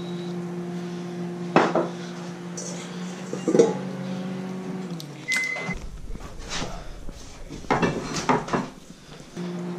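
Steady electric hum of a running kitchen appliance that winds down in pitch and stops about five seconds in, followed by a short high beep, with scattered clinks and knocks of dishes and handling. The hum is back near the end.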